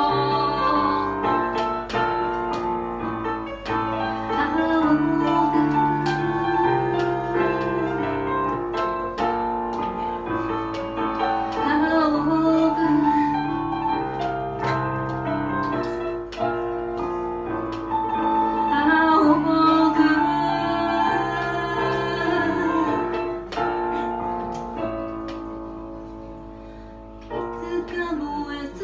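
Music: a song sung over piano accompaniment, fading down near the end before a new passage begins.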